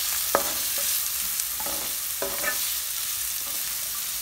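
Chopped onions frying in ghee in a kadai with a steady sizzle, being fried till golden. A wooden spatula stirs them, scraping and knocking against the pan a few times.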